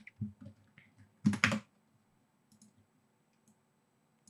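Computer keyboard keys tapped in short bursts during the first second and a half, followed by a few faint, spaced mouse clicks.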